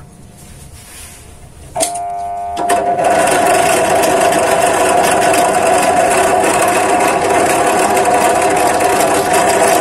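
Bench drill press switched on a little under two seconds in, its motor humming. From about three seconds it runs louder and steadily as the 5 mm twist bit cuts a pilot hole into a 40x40 square steel hollow tube.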